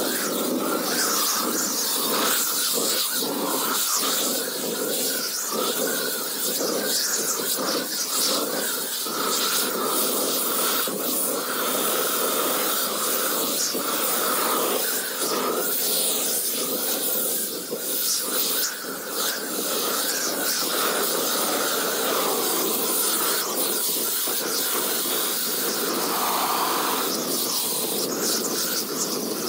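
IdealGas propane weed torch burning steadily: a continuous rushing noise with no break, mixed with wind on the microphone.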